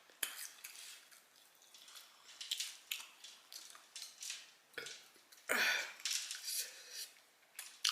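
Close-miked wet mouth sounds of eating fried chicken wings: soft, scattered clicks and smacks of chewing, with a louder breathy rush about five and a half seconds in.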